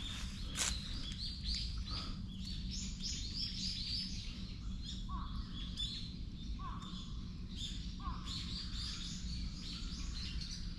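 Wild birds chirping and calling in the woods, with a shorter, lower call repeated about every one and a half seconds from about five seconds in. One brief knock comes just after the start.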